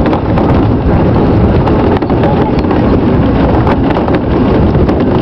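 Mount Washington Cog Railway train running uphill: a loud, steady rumble and rattle with frequent sharp clicks and knocks from the running gear, mixed with wind on the microphone.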